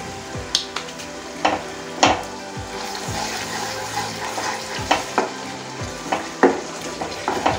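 A wooden spatula stirs thick onion-tomato masala gravy in a non-stick kadai. The gravy sizzles steadily as it cooks down, and the spatula knocks against the pan every second or so.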